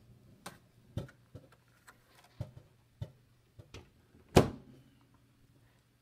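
Scattered sharp pops and clicks over a faint low hum, which the speaker puts down to wind outside. A louder knock about four and a half seconds in is the microwave oven's door being shut.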